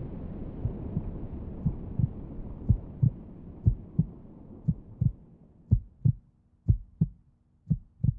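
Heartbeat sound effect: paired low thumps about once a second, growing clearer as a low rumbling noise fades away. A faint steady low hum enters near the end.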